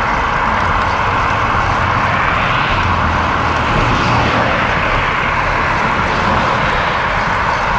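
Steady road traffic noise from vehicles on a busy highway, a continuous rushing hiss over a low rumble that swells slightly as vehicles go by about three and four seconds in.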